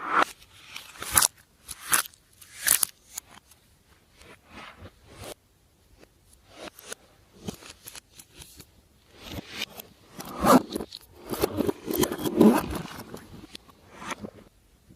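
Glossy slime being stretched, poked and squeezed by hand, giving irregular sticky clicks and wet squelches, busier and louder for a few seconds past the middle.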